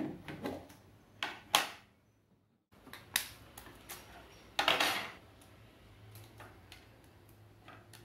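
Knocks and clicks of a plastic food container and its snap-on plastic lid being handled and pulled off, with a metal spoon clinking. A longer clattering rattle comes about halfway through.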